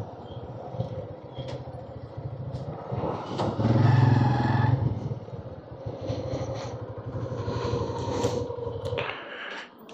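Motorcycle engine running on the move, swelling louder around four seconds in; the low engine sound falls away near the end.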